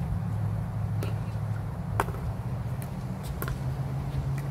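Pickleball being played: several sharp pocks of paddles and ball, the loudest about halfway through, over a steady low hum.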